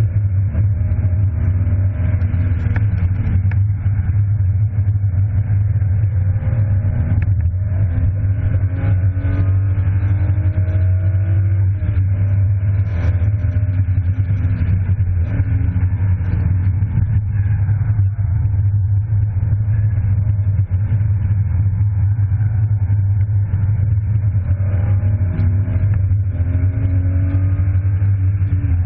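BMW E36 325i's inline-six engine heard from inside the cabin, driven hard: its note climbs in pitch several times under acceleration and drops back between climbs, over a loud, steady low rumble.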